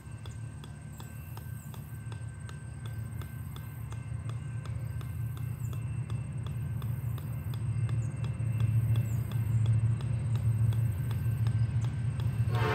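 Golf ball bouncing on the steel head of an 8-pound sledgehammer: a steady run of light ticks, about three a second. Under it a low rumble grows louder toward the end and is the loudest thing heard.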